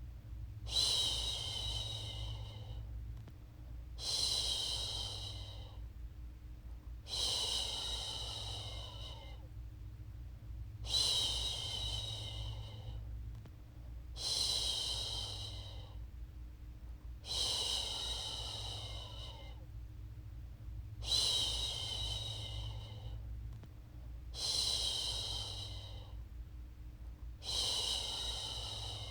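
A woman's voice making long "shhh" shushing sounds to lull a baby to sleep, repeated in a steady rhythm about every three seconds, nine times in all. Each shush starts sharply and fades away.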